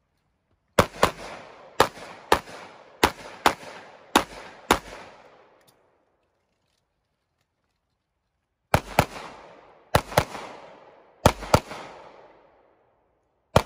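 Pistol shots fired in quick pairs, about eight in the first five seconds, each with a short echo. After a pause of about four seconds, six more follow in pairs, and one more comes just before the end.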